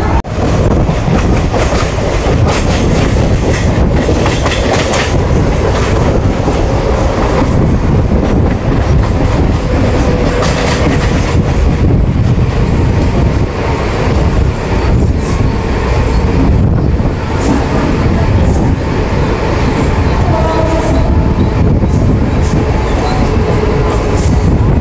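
Mumbai suburban local train running: a loud, steady rumble and clatter of wheels on the rails.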